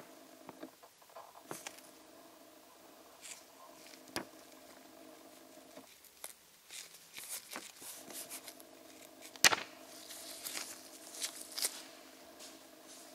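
Scattered light clicks, taps and rustles of small objects being handled, with one sharper click about nine seconds in, over a steady hum that drops out for about two seconds near the middle.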